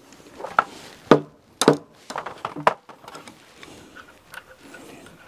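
A series of sharp knocks on a wooden timber girder as it is worked into position on its piers: about six knocks in the first three seconds, then fainter taps and ticks.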